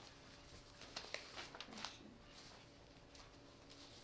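Near-quiet room tone with a few faint, short rustles of paper sheets being handled, mostly in the first two seconds.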